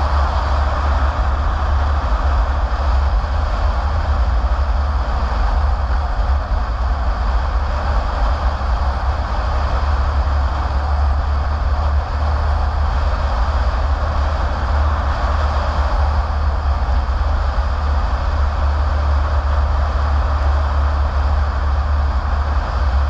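Steady noise of a car driving along a wet road: a heavy low rumble with an even hiss of tyres and wind on top.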